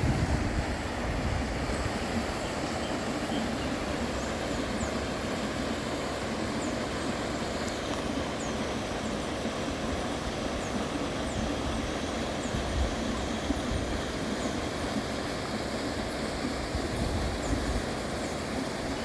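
Waterfall rushing steadily, a constant noise with a heavy low rumble. Faint, short, high chirps come above it every second or so.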